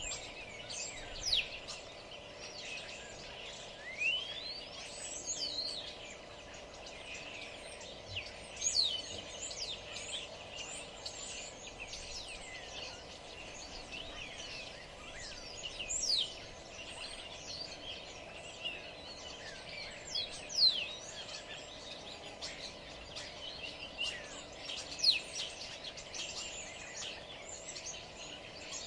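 Several birds chirping and singing, a scatter of quick, high, mostly falling whistles and twitters with no regular rhythm, over a faint steady background hum.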